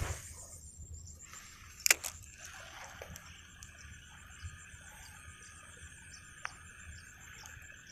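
Quiet outdoor ambience beside a pond: a sharp handling click about two seconds in and a fainter click later, over a steady high buzz with light, regular ticking.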